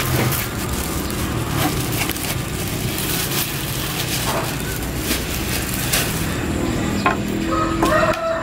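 Fish and knife handled on a wooden chopping block: scattered knocks and scrapes over steady background noise.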